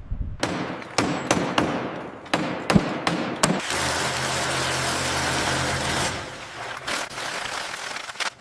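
Construction work sounds: a run of sharp knocks and clatters, then a power tool running steadily for a couple of seconds, then a few lighter knocks.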